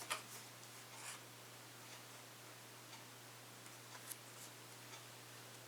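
Faint handling sounds of small plastic gear: a few light clicks and rubs, one about a second in and another near four seconds, over a steady low hum.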